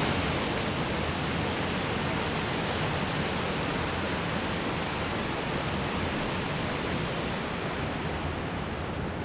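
Barron Falls pouring: a steady rush of falling water, even and unbroken.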